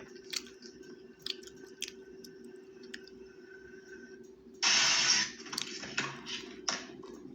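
Someone eating fried chicken: chewing with small clicks, then a loud crunchy bite about four and a half seconds in and a few shorter crunches after it, over a steady low hum.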